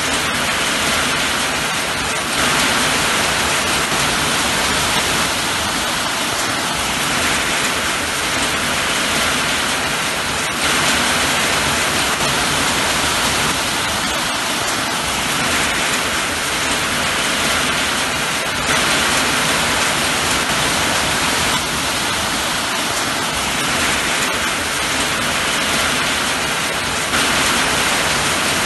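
Steady heavy rain: a dense, even hiss with slight swells every several seconds.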